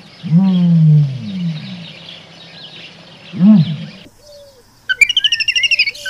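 Animal calls: a long falling call soon after the start and a short rise-and-fall call a few seconds later, over faint chirping. After a brief gap, rapid high-pitched bird-like chirping begins near the end.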